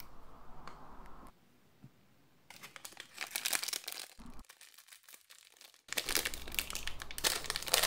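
Silver foil blind bag being torn open and crinkled in the hands, in two spells of crackling: one starting about 2.5 s in, and a louder one from about 6 s in.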